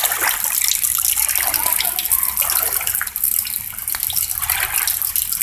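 Floodwater rushing steadily, a continuous hiss of moving water.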